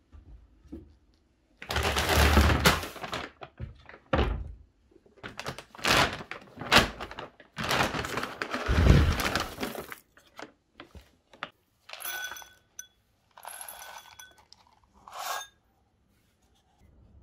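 A plastic bag of dry cat food rustling and crackling as a hand digs kibble out of it. This is followed by three short pours of kibble into glass bowls, the pellets rattling with a bright ringing of the glass.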